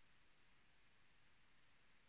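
Near silence: only a faint steady hiss, with no engine or voice to be heard.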